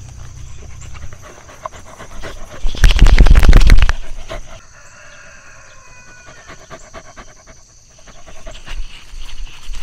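Dog panting close by over a run of small clicks; about three seconds in, a loud rustling burst lasts about a second.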